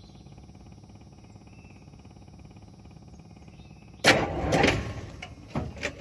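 Faint low hum, then about four seconds in a cold start of a Ford 7.3 IDI V8 diesel that has been left in gear: a sudden loud burst of starter and engine noise as the truck jerks, fading over about a second, with a second sharp knock a moment later.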